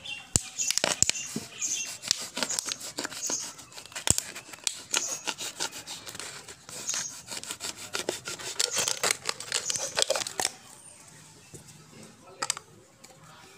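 Knife blade sawing and piercing through a plastic soft-drink bottle: a rapid run of scratching, rasping and crackling as the plastic is cut. The cutting stops about ten and a half seconds in, with one more click near the end.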